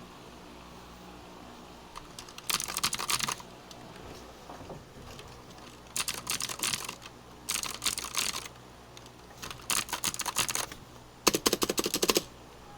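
Keys of a Gigaware K28 keyboard being typed on in five quick runs of rapid clicking, each lasting about a second, with short pauses between them.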